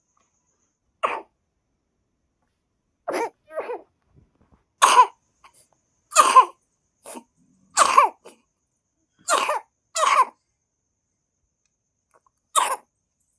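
A person coughing repeatedly: about ten short coughs spaced one to two seconds apart, some coming in quick pairs.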